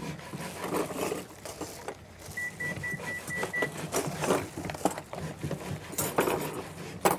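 A utensil stirring wet cake-batter ingredients (eggs, sugar, oil) by hand in a mixing bowl, with irregular scrapes and knocks. About two and a half seconds in, a run of about six quick high beeps sounds for just over a second.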